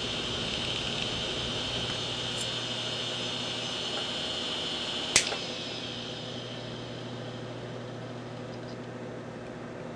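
Opened hard disk drive spinning with a steady high whine. About halfway through there is one sharp click as it powers down and the heads park, then the whine falls away as the platters spin down.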